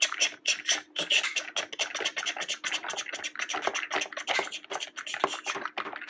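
Plastic toy breaker attachment jabbed rapidly into Play-Doh lumps on a tabletop, making quick irregular taps and scrapes, several a second, as the clay rocks are broken up.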